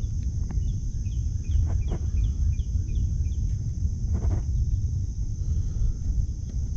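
Low rumbling noise across the microphone, like wind. A small bird gives a quick series of short, falling chirps starting about a second in, and there are a few faint knocks.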